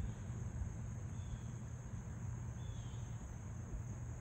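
A steady high-pitched insect chorus over a low, continuous rumble.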